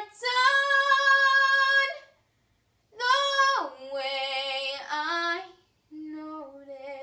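A girl's solo voice singing without accompaniment: a long held note, a short pause, a phrase with a falling slide, then a quieter, lower closing phrase.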